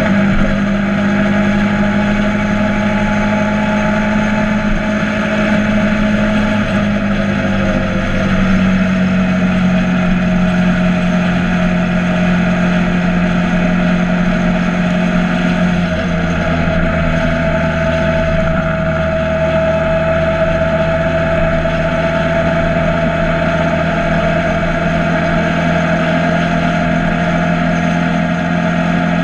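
Motorcycle engine running steadily under way, its pitch dropping slightly about eight seconds in, over a constant rushing noise.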